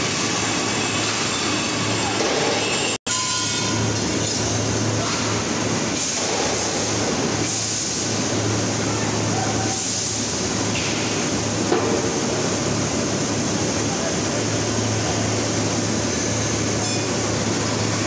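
Steady din of steel rolling mill machinery: a continuous noisy rush with a low steady hum beneath it. The sound cuts out for an instant about three seconds in.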